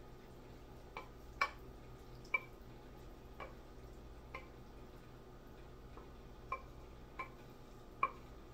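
Wooden spoon knocking against a stainless steel mixing bowl while scraping pasta out of it: irregular clinks, roughly one a second, each with a short metallic ring.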